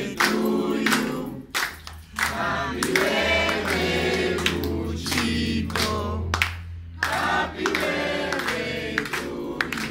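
A group of people singing a birthday song together, with hands clapping along.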